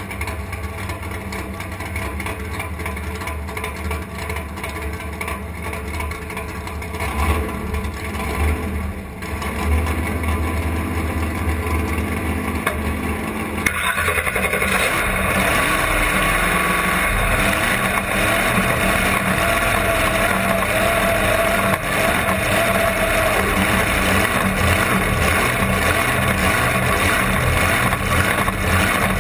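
Supercharged big-block Chevrolet V8 of a blown alcohol dragster running steadily, heard close up. About halfway through the sound abruptly gets louder and fuller.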